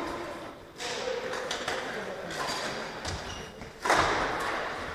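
Badminton hall sounds between rallies: scattered taps and knocks, a few short high squeaks, and one loud thump about four seconds in, all echoing in a large sports hall.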